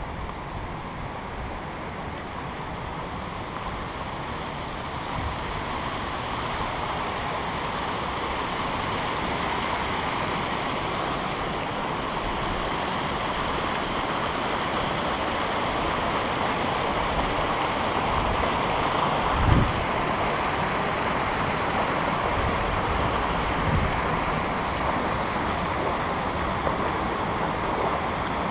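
River water rushing over a low concrete weir and around rocks: a steady rushing that slowly grows louder. A brief low thump about two-thirds of the way through.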